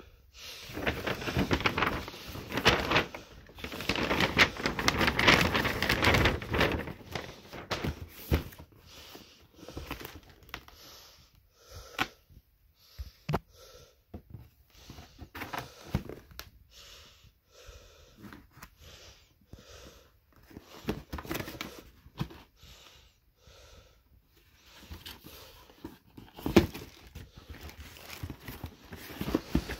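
Brown paper shopping bag rustling and crinkling for the first several seconds as a cardboard shoe box is drawn out of it, then scattered taps, scrapes, clicks and brief rustles of the box being handled and opened, with one sharp knock near the end.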